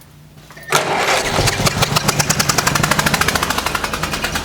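1955 Ferguson TEA-20 tractor's four-cylinder petrol engine firing up after about 40 years standing: it catches suddenly under a second in and runs on with a rapid, even firing beat.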